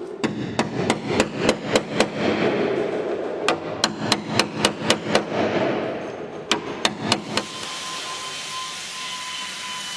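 Hand hammer striking a steel bar held against an old car's body panel: a quick series of sharp metal blows, about three a second, with a short pause after about two seconds. The blows stop about seven seconds in, leaving a steady hiss with a faint high whine.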